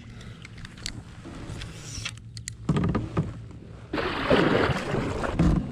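Water churning and splashing around a pedal-drive kayak as it is moved, much louder from about four seconds in, with a few short pitched creaks.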